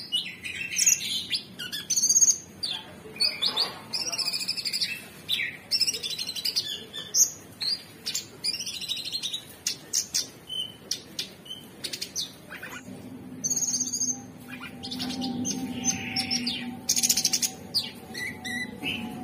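Male orange-bellied leafbird singing a long, varied run of rapid high chirps, whistles and buzzy trills. A steady low hum comes in underneath about two-thirds of the way through.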